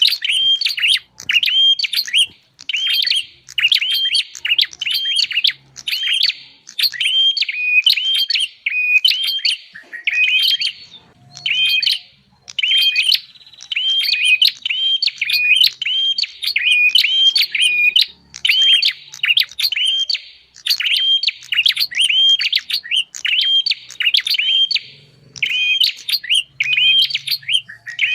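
Prinia (prenjak) calls played as a bird-luring recording: a fast, unbroken run of sharp chirps, several a second, with a few brief breaks.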